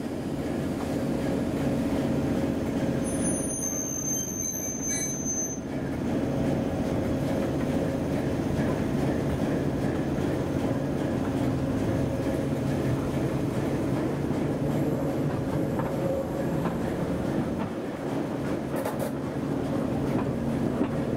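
Diesel shunting locomotive working steadily ahead of the train, heard from an open carriage window: a continuous engine drone over rail and running noise. A brief high-pitched squeal comes about three seconds in.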